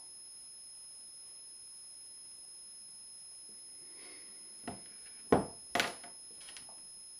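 A smartphone and a pen being set down on a hard tabletop: a light tap, then two sharper knocks about five and six seconds in, with a couple of small clicks after. A faint steady high-pitched whine sits under it throughout.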